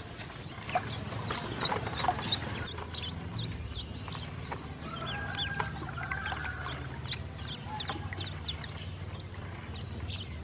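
Ducklings peeping over and over in short, high, falling calls, with small clicks and splashes as they paddle and dabble in shallow water in a plastic tub, over a low steady rumble.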